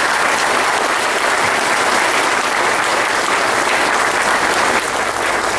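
A crowd applauding: a dense, steady mass of clapping hands.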